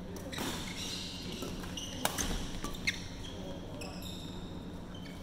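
Badminton rackets striking a shuttlecock, two sharp hits a little under a second apart, with shoes squeaking on the court mat.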